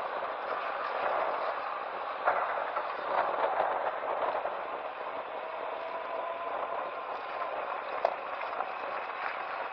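Yamaha FJR1300 motorcycle being ridden over a rough dirt and loose-stone road surface: steady road and wind noise, with a couple of sharp knocks from stones and bumps, about two seconds in and about eight seconds in.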